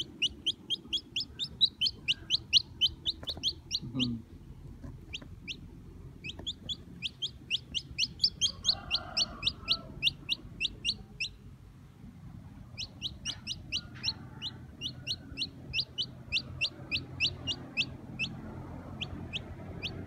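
Newly hatched chicken chick peeping loudly and insistently: short, high, falling peeps at about four a second, in three runs with brief pauses around four and eleven seconds in.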